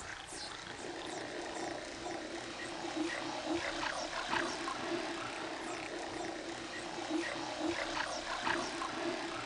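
Dolphins heard underwater: repeated trains of clicks and buzzes, with a few quick falling whistles near the start, over a steady low hum.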